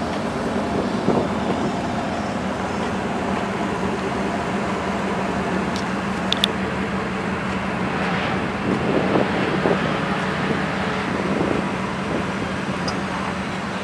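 Steady outdoor car-show lot ambience: a low, even vehicle hum with a few brief clicks around the middle.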